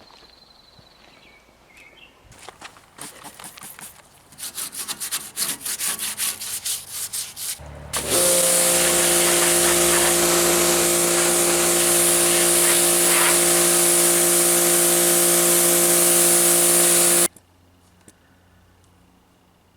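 Rhythmic scraping strokes for several seconds. Then a machine starts with a steady motor hum under a loud hiss, runs for about nine seconds and cuts off suddenly.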